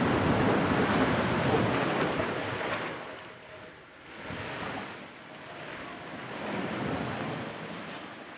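Sea waves surging and breaking on the shore, a rushing wash of surf that is loudest for the first three seconds, then eases and swells again in slow surges.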